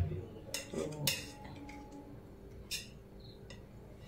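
A knife scraping and clicking against the inside of an aluminium steaming bowl in a few short strokes, working steamed semolina rolls loose from its sides.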